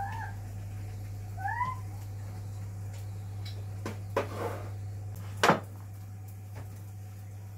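A cat meowing in short rising calls, twice in the first two seconds. A few sharp knocks follow, the loudest about five and a half seconds in, over a steady low hum.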